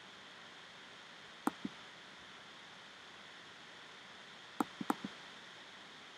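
Faint clicks of a computer mouse button over a steady low hiss: one press-and-release about a second and a half in, then two more clicks close together near the five-second mark.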